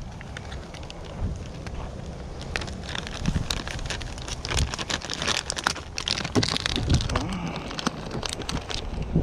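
Crinkling of a clear plastic bag of soft-plastic fishing baits being handled and opened: a dense, irregular run of crackles that builds from about two seconds in.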